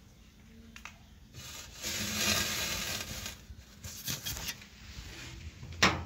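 A drawing tool scratching across paper in one stretch of strokes lasting about two seconds, a second and a half in. Light taps and clicks of handling sound around it, with a sharp tap near the end.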